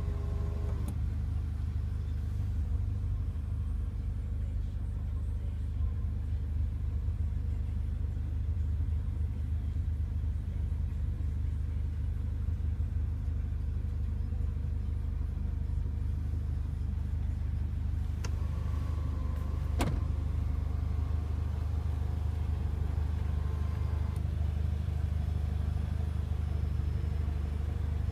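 Renault Mégane RS engine idling, heard inside the cabin as a steady low hum, with a single sharp click about twenty seconds in.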